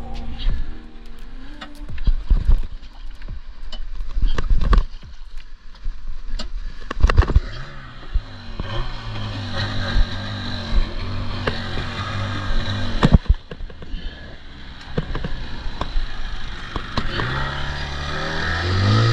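Mercury outboard motor on an inflatable boat running steadily under tiller control, its pitch climbing near the end as it speeds up. Irregular sharp knocks and thumps sound throughout, most of them in the first half.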